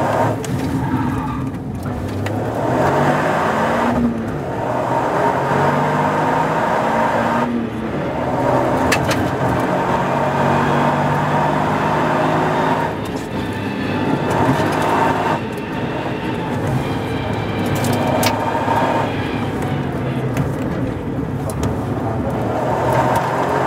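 Toyota GR Yaris rally car's turbocharged three-cylinder engine, heard from inside the cabin, accelerating hard through the gears, its pitch climbing and then dropping at each shift, then coming off the throttle to slow. Road and tyre noise runs under it, with a couple of sharp clicks.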